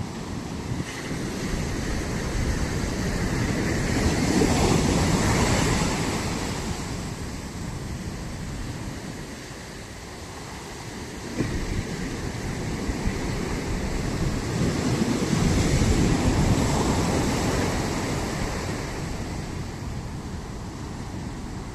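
Ocean surf breaking on a shore: rushing wave noise that swells and fades twice, about ten seconds apart.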